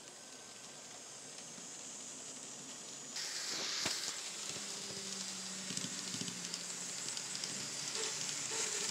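N-scale model passenger train running on its track: a steady hissing whir of wheels and motor, louder from about three seconds in, with a faint low hum in the middle.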